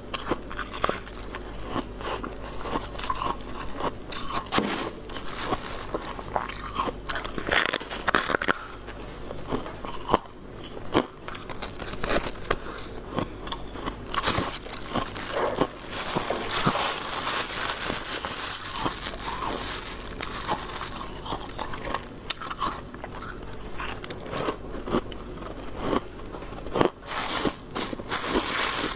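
Hard freezer frost being bitten off and chewed: dense, irregular crunching of icy frost, with many sharp cracks.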